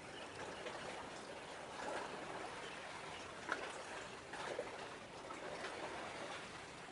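Steady wash of harbour water, with a few short chirps standing out about halfway through.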